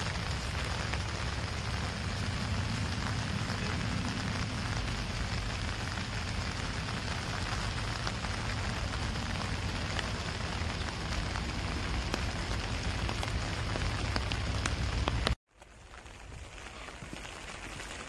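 Steady spring rain falling on grass and leaves, with scattered light drop ticks over a heavy low rumble. About fifteen seconds in the sound cuts off suddenly and comes back softer.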